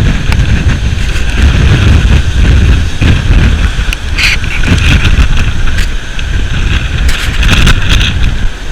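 Strong wind buffeting the microphone over the noise of a rough sea's surf: a steady heavy rumble, with brief surges of hiss about halfway through and again near the end.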